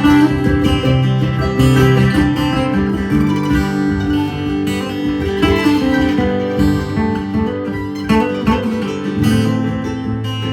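Acoustic guitar playing an instrumental passage of the song, a continuous run of chords and notes with no singing.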